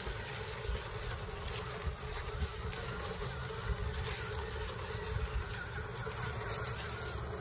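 Small electric motors and geared drivetrains of two radio-controlled crawler trucks whining as they creep over gravel, the pitch wavering slightly with the throttle, with small stones crunching under the tyres.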